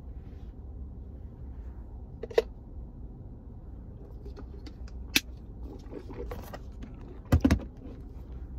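A plastic scoop and shaker bottle handled during a dry scoop of pre-workout powder and a drink: a few sharp clicks, then a loud double knock about seven and a half seconds in. A steady low hum of the car cabin runs underneath.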